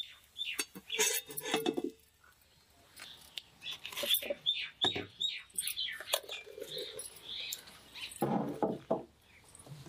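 Clay lid clinking against a cast-iron kadai as it is lifted off, then thick chickpea curry boiling with a run of short pops and blips.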